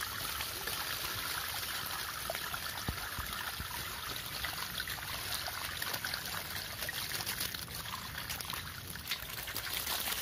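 Water pouring in a steady stream from the mouth of a tipped clay pot and splashing onto wet ground, with a few sharper splashes near the end.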